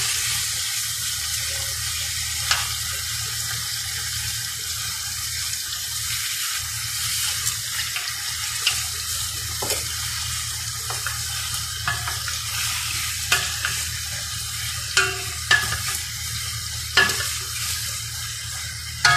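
Chicken pieces sizzling in a steel pot while being stirred with a wooden spoon, a steady hiss with a low hum underneath. The spoon knocks against the pot now and then, more often in the second half.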